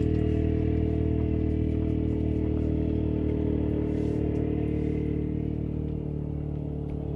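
An engine running at a steady pitch, slowly fading away, with a few faint ticks over it.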